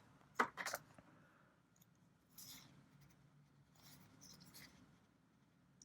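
Trading cards being handled, with a few short rustling slides of card against card. The loudest comes within the first second, with fainter ones about two and a half seconds in and again around four seconds.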